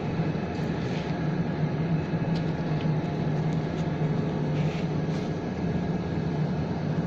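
Wood sawdust pellet mill running with a steady, even hum and a few faint ticks.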